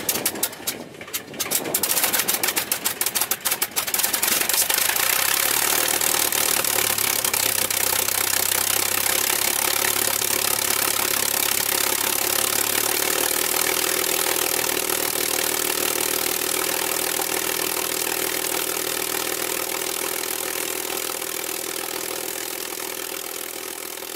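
The Packard Merlin V-12 of a P-51C Mustang starting: the engine fires in separate, uneven strokes for the first few seconds, then catches and settles into a steady run that eases slightly toward the end.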